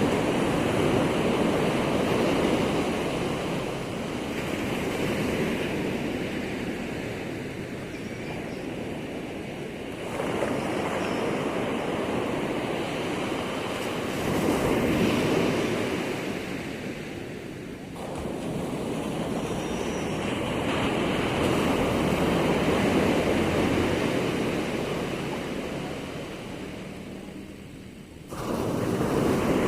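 Ocean waves at high tide breaking and washing ashore, a steady rush that swells and ebbs every few seconds. The level jumps abruptly a few times.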